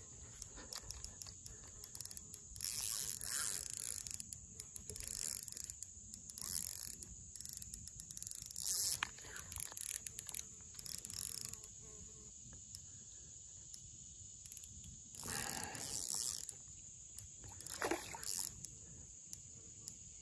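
Hooked catfish splashing and sloshing at the surface in several short, irregular bursts as it fights the line, over a steady high-pitched insect chorus.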